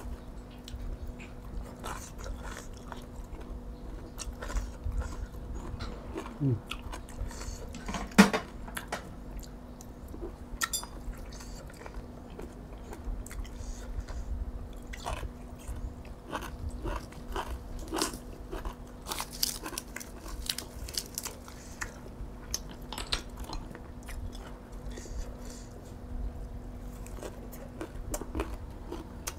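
A person chewing and crunching food, with scattered small clicks and one sharp, louder click about eight seconds in.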